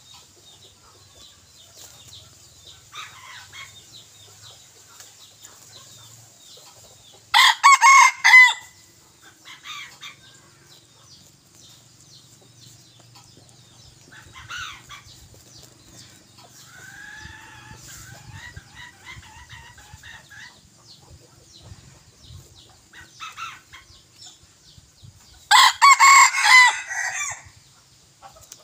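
Red junglefowl roosters kept as decoy cocks: two loud, short crows, one about seven seconds in and one near the end, with softer clucking calls between.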